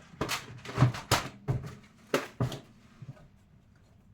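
Light knocks and clatters, about six in the first two and a half seconds, as packets and small boxes are handled and set down in a kitchen cabinet, then a quiet stretch.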